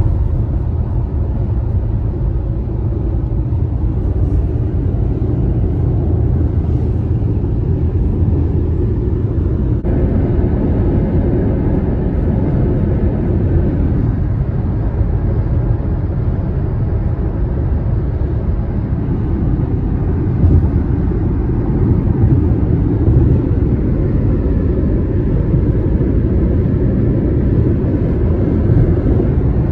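Road noise of a car driving at freeway speed, heard from inside the car: a steady low rumble of tyres and wind.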